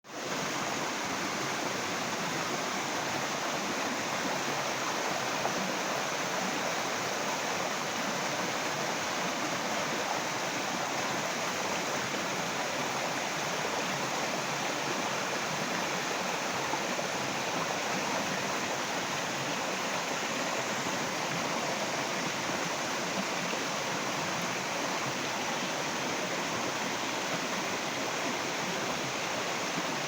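Running water rushing steadily, like a stream or small cascade, an even unbroken rush with no other events.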